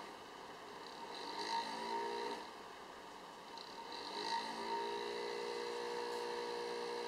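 Cooling fan of a GeForce GT240 graphics card making an abnormal, very loud droning buzz. The pitch climbs briefly, drops away, climbs again and then holds steady.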